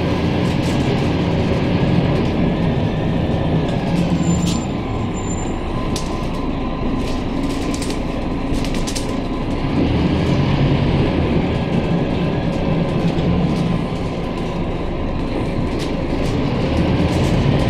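Scania K310UB city bus heard from inside while driving: a steady diesel engine and road noise, with light clicks and rattles from the interior. It grows louder about ten seconds in and again near the end.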